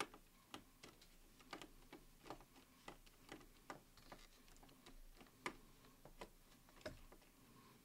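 Small Phillips screwdriver turning a screw into a laptop screen hinge: a faint run of short, irregular ticks, about two a second.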